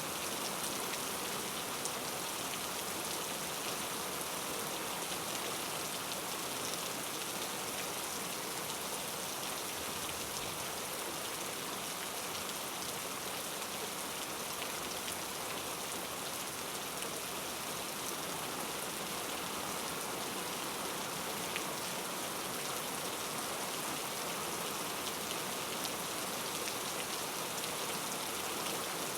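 Steady rain falling, an even patter of drops with no change in strength.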